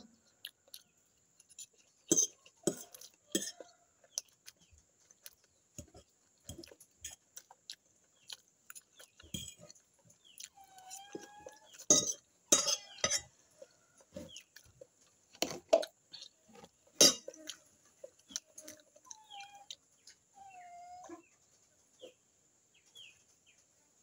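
Fork clinking and scraping against a glass bowl while eating, in scattered sharp clicks with a few louder strikes. Chickens cluck briefly in the background.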